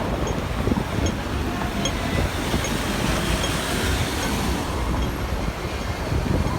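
Hong Kong double-decker electric tram running on its street tracks: a steady low rumble of wheels on rail.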